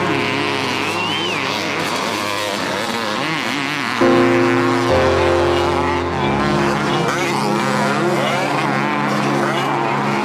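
Motocross bike engines revving up and down, their pitch rising and falling repeatedly, over background music with held chords that change about four and six seconds in.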